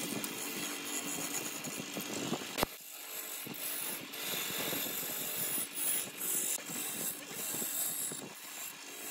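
Wood lathe spinning a large log blank while a hand-held gouge cuts into it: a continuous rough scraping of the tool on the wood, rising and falling unevenly with the pressure of the cut. A single sharp click about two and a half seconds in.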